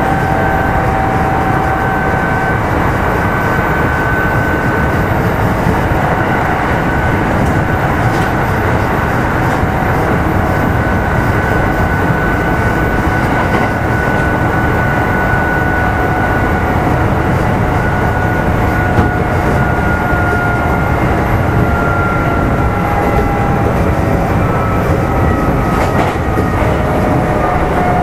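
Kintetsu 1810 series electric train, motor car Mo 1826, running at speed: a steady rumble of wheels on rail with a traction motor and gear whine. The whine's pitch sinks slowly over the last several seconds as the train eases off.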